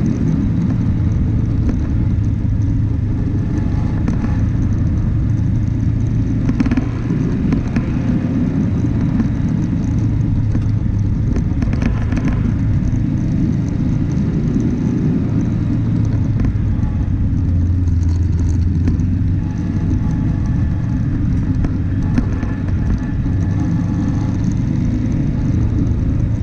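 Vehicle driving off-road on a dirt track: a steady low rumble of engine and tyres, with brief rattles about 7 and 12 seconds in.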